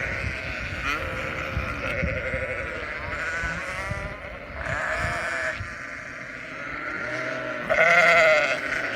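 Sheep bleating several times in wavering calls, the loudest bleat near the end.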